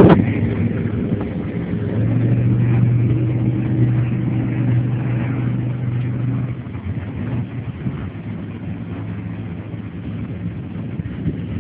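Jet boat engine running with a steady low drone, which falls away about two-thirds of the way through, leaving a quieter rushing noise.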